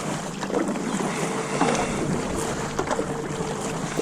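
Wind buffeting the microphone by the water, with scattered knocks and clicks. A faint steady hum comes in about a second in and stops near the end.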